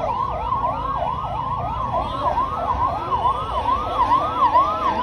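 Ambulance siren wailing in a fast, repeating rising sweep.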